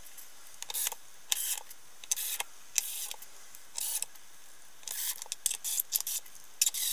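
DeWalt cordless drill-driver driving screws into the back panel of a speaker cabinet, in a series of short bursts with brief pauses and small clicks between them.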